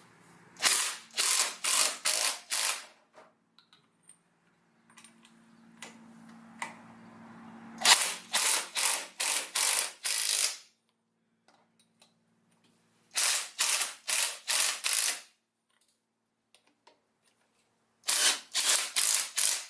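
Impact wrench tightening wheel lug nuts in quick trigger-pulled bursts: four runs of five or six sharp hammering rattles, about three a second, with pauses between nuts.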